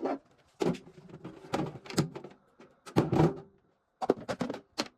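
Clacks, knocks and clicks of a microwave oven and tools being handled as it is taken apart, about a dozen sharp hits with a quick run of clicks near the end.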